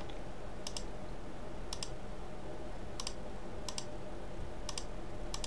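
Computer mouse button clicks, about six of them spaced unevenly, each a quick press-and-release pair, over a low steady electrical hum.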